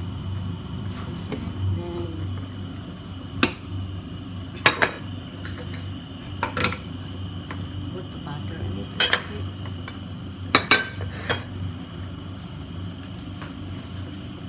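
Dishes and utensils clinking as they are handled on a kitchen counter: a scatter of sharp clinks, several in quick pairs, over a steady low hum.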